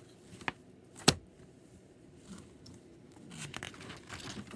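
Paper being handled, rustling and crinkling, with two sharp taps about half a second and a second in, the second the loudest.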